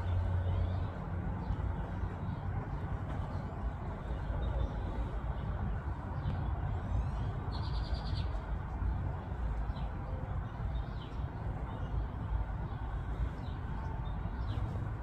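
Faint bird chirps over a steady low rumble, with a short buzzy bird call about eight seconds in.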